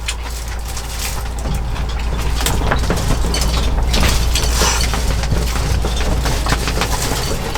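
Close crackling and crunching, many short irregular cracks, over a steady deep rumble of wind.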